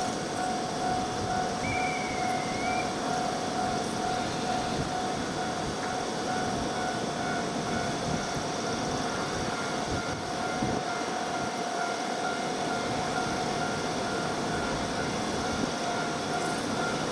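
JR East 701 series electric train standing at the platform with its equipment humming, a steady whine held under the hum, then starting to pull away near the end.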